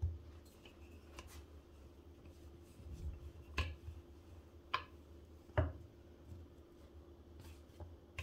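Chapati dough being pressed flat by hand and rolled with a wooden rolling pin on a floured granite countertop, with a few sharp knocks of the pin against the stone.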